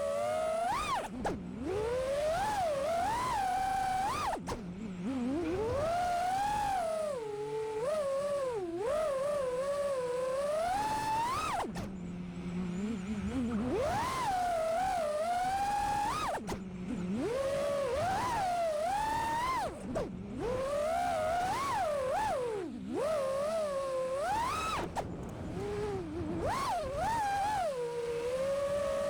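5-inch FPV quadcopter's iFlight Xing2 1855kv brushless motors and Gemfan Hurricane props whining, the pitch swooping up and down with throttle punches and cutting out briefly several times as the throttle drops.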